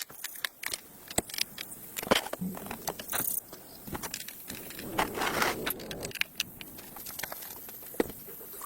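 Irregular light knocks and clicks of objects being handled, with a brief scraping rustle about five seconds in.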